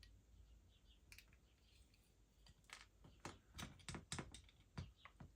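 A run of faint, sharp clicks and light taps, about a dozen in quick irregular succession through the second half, from small parts of an airsoft pistol being handled during disassembly.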